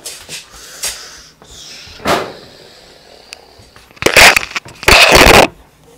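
Handling noise on a phone's microphone: scattered small knocks and a short rustle, then two loud rubbing scrapes about four and five seconds in as the phone is covered.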